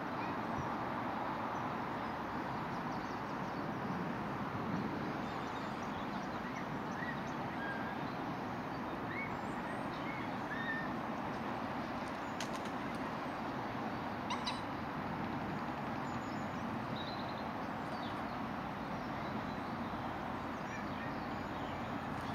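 Steady outdoor background noise with a few faint, short bird chirps scattered through the middle, and a couple of sharp clicks about two-thirds of the way in.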